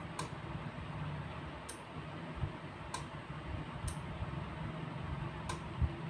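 Sharp clicks of a small 5 V relay switching an LED bulb on and off as light on its photodiode sensor is turned on and off. There are five clicks, spaced unevenly a second or so apart.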